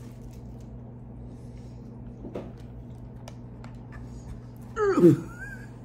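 Steady low hum with a few faint clicks, then about five seconds in a brief vocal sound that falls in pitch, followed by a short rising note.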